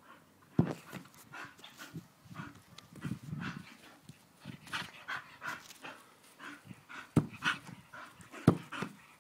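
English Bull Terrier making short, repeated breathy sounds as it leaps and snaps at a football held over it. Three sharper, louder hits stand out, one about half a second in and two near the end.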